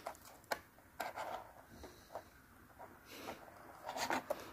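Faint scattered clicks and rubbing of fingers handling a Peco PL-10 point motor and a plastic model-railway point, working the motor's pin into the point's tie bar.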